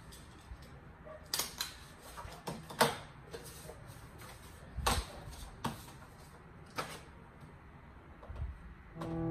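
Several irregular sharp clicks and light knocks, as of things being handled or set down, about seven clear ones spread through the few seconds over low room noise.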